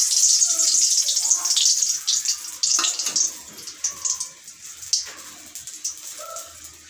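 Dried red chillies sizzling in hot refined oil in a kadai: a loud hiss that dies down after about two and a half seconds into scattered pops and crackles.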